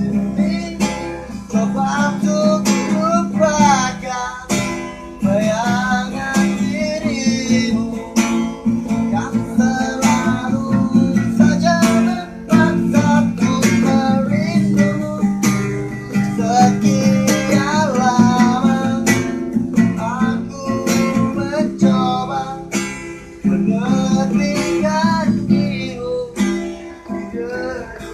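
Acoustic guitar strummed steadily, with a voice singing a wavering melody along with it.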